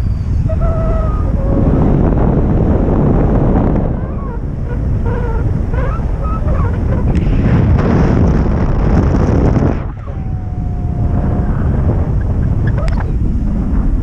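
Wind buffeting the microphone as a loud, rumbling steady rush, with a few faint short whistled calls over it and one longer, steadier call about ten seconds in.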